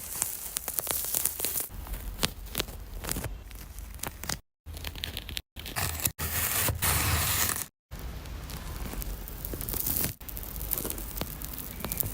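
Dense crackling and tearing noises, full of small sharp clicks, in several short clips joined by abrupt cuts with brief silences between them.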